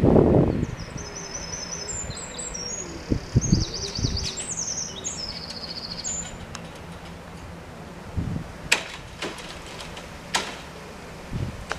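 A small songbird singing a quick run of high chirps and trills for the first half or so, over low gusts of wind buffeting the microphone. Two sharp clicks come near the end.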